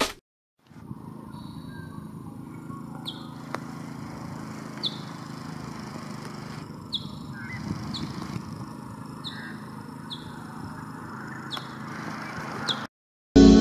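Outdoor ambience: small birds giving short, sharp high chirps every second or two over a steady low background rumble.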